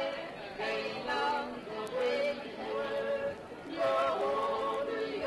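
Swiss folk music playing, with held notes that step up and down in pitch.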